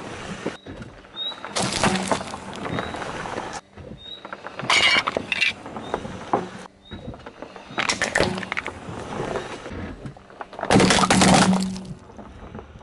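A car tyre crushing small objects on asphalt, one after another, each a short burst of crunching and cracking. Metal jar lids clink and crumple under the tyre, and the loudest burst near the end is balloons popping under the wheel.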